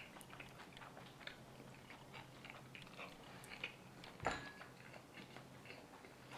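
Faint mouth sounds of a person chewing a mouthful of rice and ramen, with scattered small clicks and one sharper, louder click about four seconds in.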